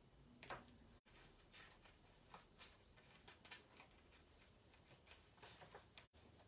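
Near silence: room tone with faint, scattered small taps and rustles, and the sound cutting out completely for an instant twice, about a second in and near the end.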